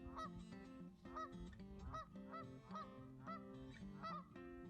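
Canada geese honking over and over, two to three short honks a second, agitated by people approaching.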